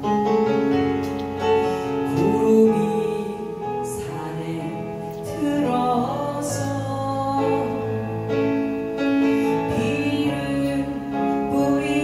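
A woman singing into a microphone and accompanying herself on a Yamaha electric keyboard, with long held notes over sustained keyboard chords.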